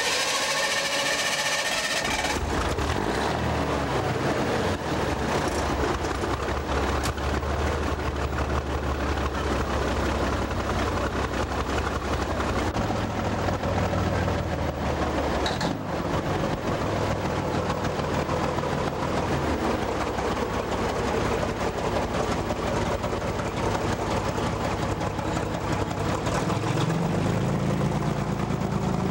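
Heavy diesel truck engines idling with a steady low rumble, one revving up near the end. A brief high-pitched tone opens the sound.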